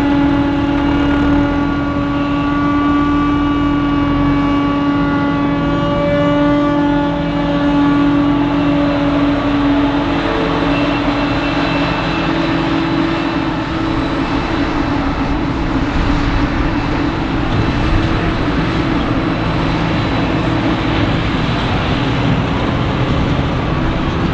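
Heavy farm machinery running steadily during maize harvesting. A steady whine from the machinery fades out about ten seconds in, leaving a rougher, even rushing engine noise.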